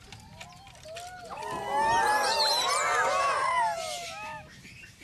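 A group of macaques calling at once, many overlapping rising-and-falling calls that swell about a second in and fade away near the end.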